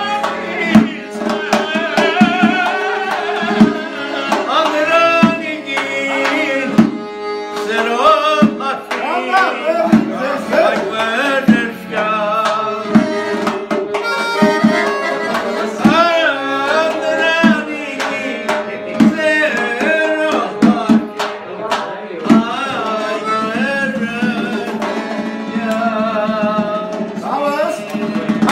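Accordion playing a lively, ornamented melody over a steady percussive beat.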